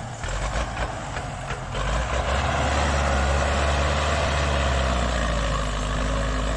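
Tractor diesel engine working hard under heavy load, pulling a sugarcane-laden trolley out of mud, getting louder about two seconds in. There are some knocks and rattles before that.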